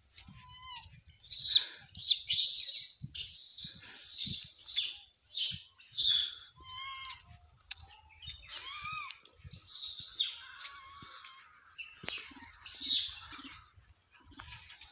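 Birds chirping and calling: a run of harsh, high-pitched calls about a second long each, with thin whistled notes between them.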